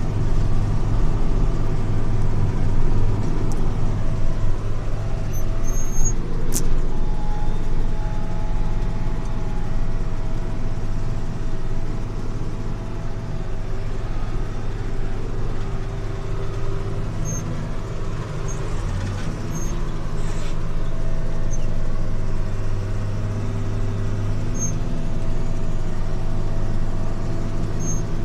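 Tractor engine running steadily under load, driving a trailed forage harvester, heard from inside the tractor cab. A single sharp click about six and a half seconds in.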